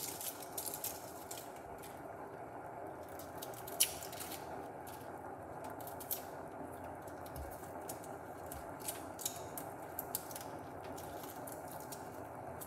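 Saucepan of water heating on an electric hotplate toward the boil: a steady hiss with irregular small pops and ticks, one louder tick about four seconds in.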